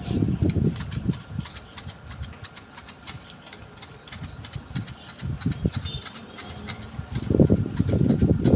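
Manual hedge shears snipping the top of a Fukien tea hedge: an irregular run of crisp blade cuts, several a second. A low rumble comes in bursts at the start and again from about seven seconds in, louder than the snipping.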